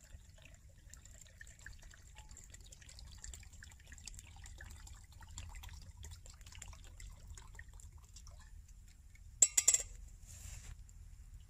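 Liquid poured from a stainless steel vacuum flask into a metal cup: a faint trickle with small ticks. About nine and a half seconds in there are a few sharp knocks, the loudest sound here, as the flask is set down, followed by a brief rustle.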